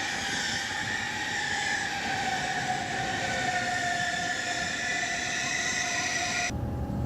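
Train wheels squealing on the rails: a steady high-pitched squeal in two tones that slowly sink in pitch, over a hiss. It cuts off suddenly about six and a half seconds in.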